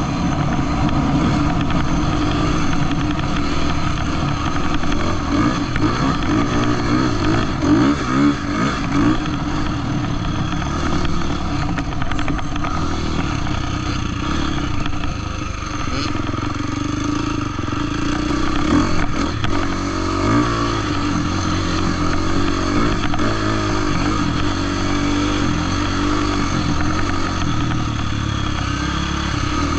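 Husqvarna off-road dirt bike engine running under load while riding, its revs rising and falling with the throttle.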